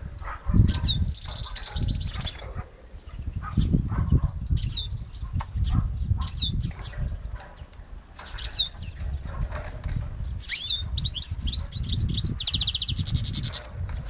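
Goldfinch × canary hybrid singing: phrases of high, sliding chirps and rapid buzzy trills, with a longer trill near the start and another near the end, over a heavy low rumble.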